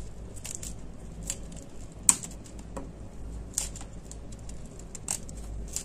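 Crepe paper rustling and crinkling as it is wound tightly down a wooden stick, in short irregular strokes, the sharpest about two seconds in.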